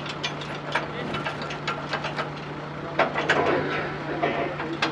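Truck-mounted borewell drilling rig running with a steady low hum, with irregular metallic clicks and clanks from its drill head and rods, busiest about three seconds in.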